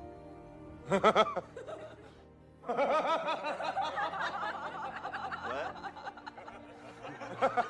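A person chuckling briefly about a second in, then laughing for several seconds, over background music.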